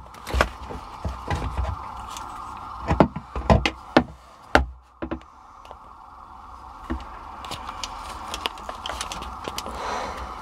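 Handling noise from a camera being worked around inside a jet ski's engine compartment: scattered knocks and rubs against hoses and hull, the loudest in the first five seconds, over a steady mid-pitched hiss.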